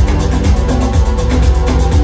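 Recorded music with a steady, fast beat and deep bass, played loudly over Revel M16 bookshelf speakers driven by a Vincent SP-331 tube-hybrid power amp, with no subwoofer.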